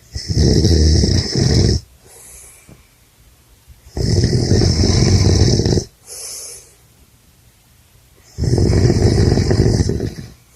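A man snoring loudly in his sleep: three long snores about four seconds apart, each followed by a short, softer breath.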